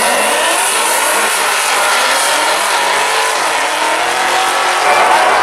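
Two drag cars, one of them a Cadillac CTS-V wagon with its supercharged V8, launching and accelerating hard down the strip. Their engines climb in pitch as they pull away.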